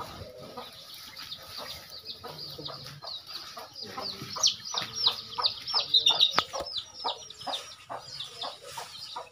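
Birds chirping: a rapid run of short, high, falling chirps, several a second, growing loudest in the middle.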